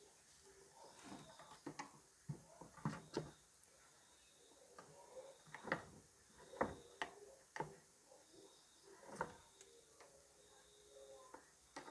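Small screwdriver prying and scraping at the seam of a Miyako rice cooker's outer casing: faint, irregular clicks and scrapes, each short, the casing not yet giving way.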